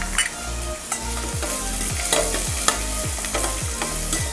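Chopped onions sizzling in hot oil in a stainless steel pot, the tempering of mustard seeds, curry leaves and dried chillies, with a steel ladle stirring and clinking against the pot several times.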